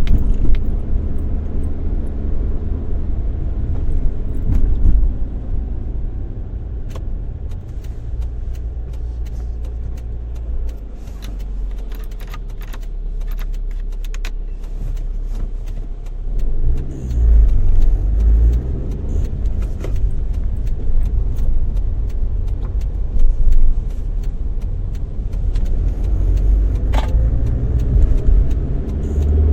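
Car driving, heard from inside the cabin: a steady low engine and road rumble, with the engine note shifting a little past halfway and scattered small clicks and rattles from the interior.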